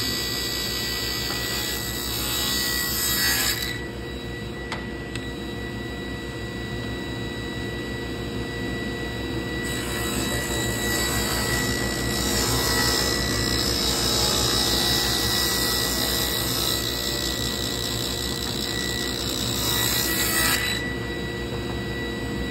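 Table saw running steadily, ripping thin strips of trim off a wooden board. The blade's cutting noise stops about three and a half seconds in, leaving the saw's steady running whine, then a second cut starts about ten seconds in and stops shortly before the end.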